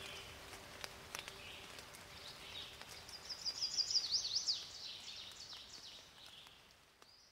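Birdsong over a faint outdoor hiss: a bird sings a quick run of high repeated notes and downward sweeps a few seconds in, then the sound fades out near the end.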